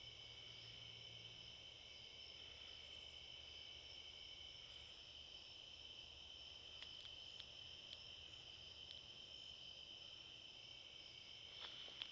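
A faint, steady chorus of insects trilling without a break at a few fixed high pitches. There are a few light ticks in the middle and a brief rustle near the end.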